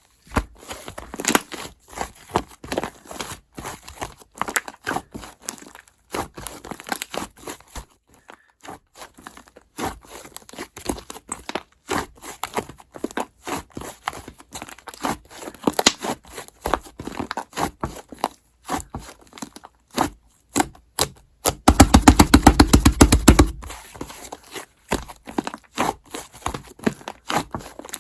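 Peach slime with a whipped-cream layer being squished and poked by hand: a steady run of sticky clicks and small pops, with a dense, louder burst of rapid crackling about three-quarters of the way through.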